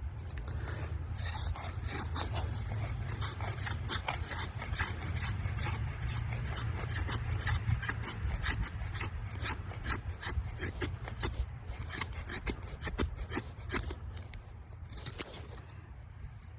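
Victorinox Venture knife blade shaving curls off a wooden stick to make a feather stick: a quick run of repeated scraping strokes along the wood.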